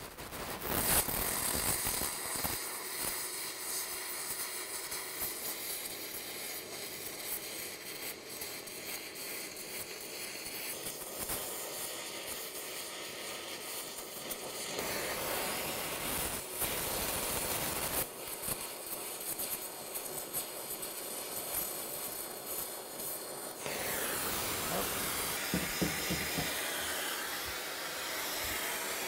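Multiplaz plasma torch running on a water-ethanol mix: a steady hiss from the plasma jet as it melts and smooths a weld bead on a steel exhaust pipe. The hiss changes in tone near the end.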